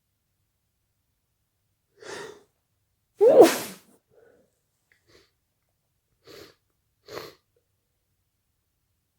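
A person sneezing once, loudly, a bit over three seconds in, with a sharp voiced burst. A short breath comes about a second before it, and two brief, fainter breaths follow near the end.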